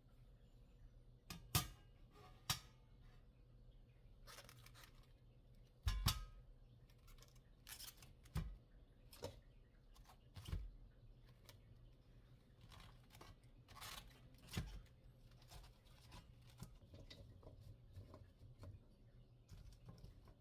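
Scattered small clicks, taps and short rustling or scraping sounds of objects being handled, irregular and fairly faint, with the sharpest clicks about a second and a half in and about six seconds in.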